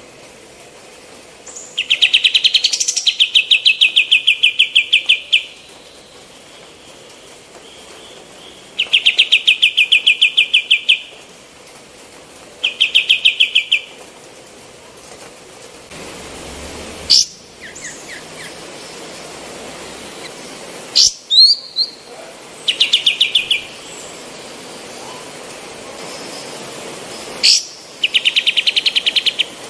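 Female kapas tembak bulbul singing: a run of fast, rattling trills, each one to three seconds long, broken by a few short sharp calls.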